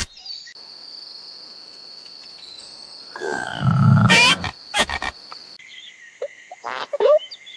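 Cartoon animal sound effects: a steady high insect-like chirring, then about three seconds in a loud, deep grunt lasting a second or so. A few short squeaky bursts follow over a continuing two-pitched drone.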